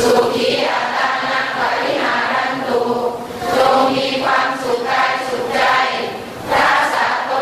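A congregation chanting together in unison, many voices sounding at once: Buddhist chanting of Pali verses in the Thai style.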